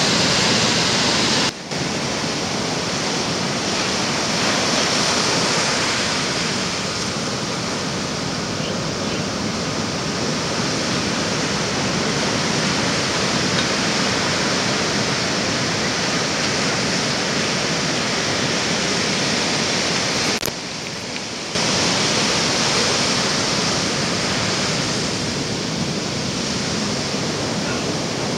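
Ocean surf breaking and washing around a beached boat hull, a steady rush of noise, with a brief drop about a second and a half in and a quieter second about twenty seconds in.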